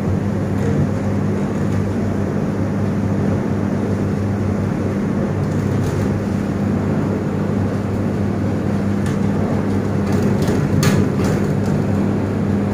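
Steady machine hum with a low drone, at an even level throughout. A few light taps come about six seconds in and again near the end.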